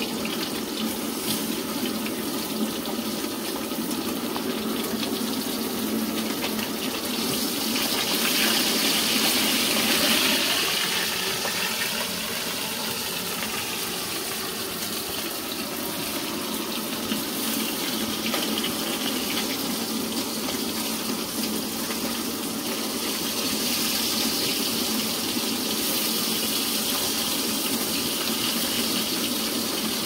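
Small fish sizzling as they fry in hot oil in a steel wok over a gas burner, a steady hiss that swells louder for a couple of seconds near the first third.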